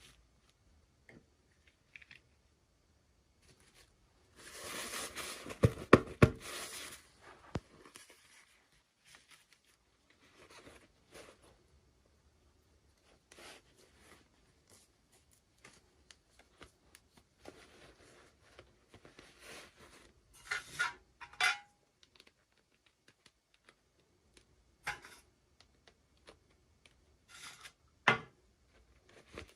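Toy packaging being opened and handled: a stretch of tearing and rustling with a few sharp clicks about five seconds in, then scattered light clicks, taps and rustles.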